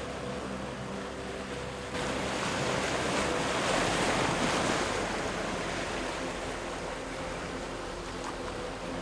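Ocean surf washing on a beach, a rush of waves that swells a few seconds in and then eases, under soft ambient background music with held tones.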